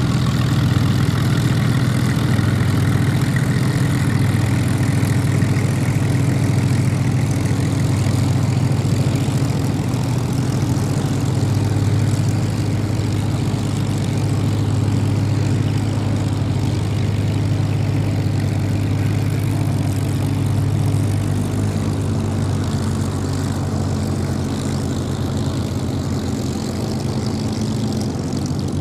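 Rolls-Royce Merlin V-12 engines of Spitfire fighters running at low power as the aircraft taxi: a steady, deep propeller drone that eases a little toward the end as they move off.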